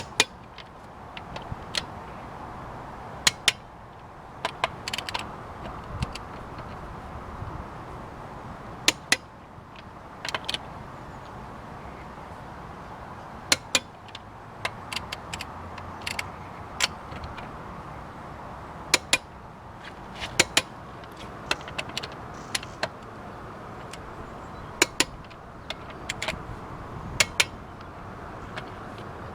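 Sharp metallic clicks and clinks of hand tools being worked and handled, coming irregularly, often in quick pairs, over a steady background noise.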